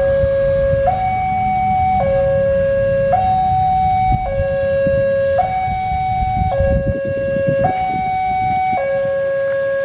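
Electronic two-tone warning alarm alternating steadily between a low and a higher note, each held about a second, as a diesel locomotive and its train approach with a low rumble underneath.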